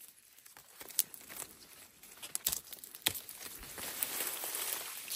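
Stiff leaves rustling as a hand grips and bends a young plant shoot. There are a few sharp clicks about one, two and a half and three seconds in, and the rustling grows fuller toward the end.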